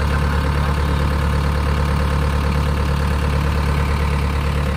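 Kobelco SK75UR mini excavator's diesel engine idling steadily, heard close up at the open engine bay.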